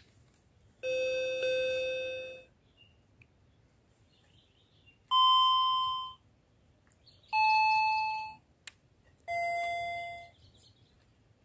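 Toy electronic keyboard played one key at a time by a small child: four separate held notes, each fading out after about a second, with pauses between. The first note is the lowest, the second the highest, and the last two step down from there.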